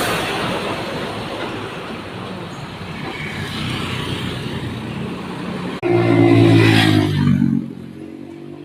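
Traffic rushing by, then nearly six seconds in a bus's telolet horn sounds a short tune of several changing notes for about two seconds, the loudest thing heard.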